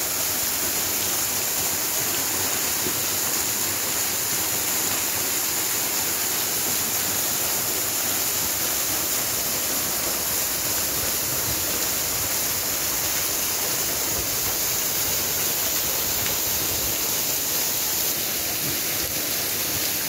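A waterfall pouring onto rocks close by: a steady, hissing rush of falling water.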